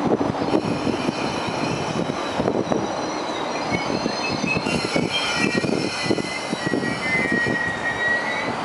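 KTT double-deck through train rolling slowly past the platform, its wheels clattering. High squealing tones from the wheels come in about halfway through and are strongest near the end.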